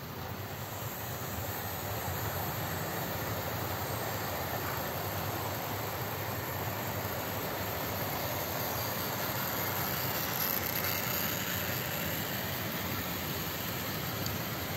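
OO gauge model trains running on the track, a steady rolling rumble of wheels on rails that grows louder over the first couple of seconds as a goods train passes close by.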